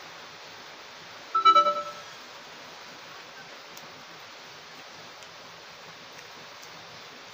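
Steady hiss of heavy rain. About a second and a half in comes a short, loud burst of electronic beeping tones in a few quick pulses, like a phone notification.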